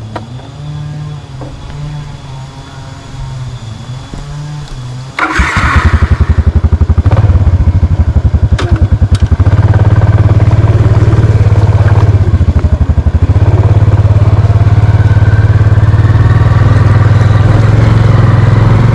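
Small single-cylinder motor scooter engine idling, then opening up and revving as the scooter pulls away about five seconds in, after which it runs loud and steady under way.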